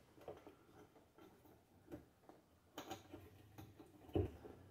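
Faint handling sounds of a rubber inner tube being worked into a small mower tire: scattered light taps and rubs, with a sharper knock near three seconds and another just after four.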